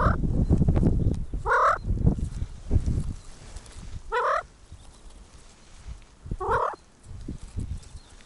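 Rock ptarmigan giving four short, throaty calls about two seconds apart. A low rumble sits under the first few seconds.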